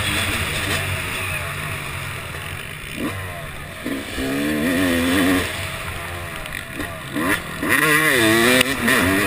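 Two-stroke Yamaha YZ250 motocross bike engine running hard, its revs rising and falling in quick waves, most clearly about three seconds in and again near the end.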